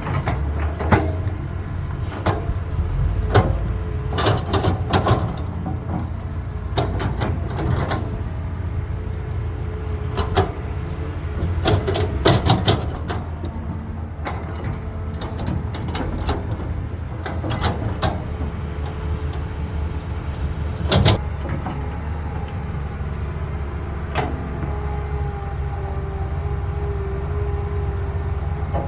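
Caterpillar excavator's diesel engine running with a steady low rumble, with many sharp clanks and knocks through the first half and one loud knock about two-thirds in. Near the end a steady higher tone joins the rumble.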